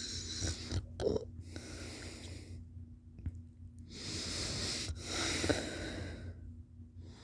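A sleeping person snoring: three long, hissy, wheezy breaths with quiet pauses between them, and a short sharp catch in the throat about a second in. The longest and loudest breath comes past the middle.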